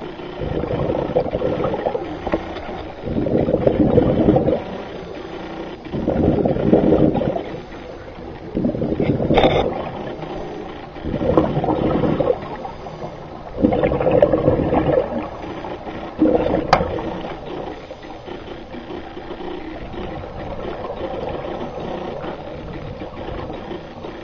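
Scuba regulator exhaust bubbles heard underwater: a burst of bubbling every two to three seconds as divers breathe out, with two brief sharp clicks among them. The bursts give way to a steadier, quieter wash for the last few seconds.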